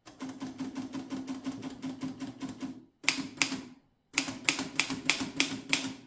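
Erika model 10 manual typewriter being typed on: a fast, even run of key strikes for about three seconds, then after short pauses two groups of louder, more spaced strokes as the carriage steps toward the set right margin.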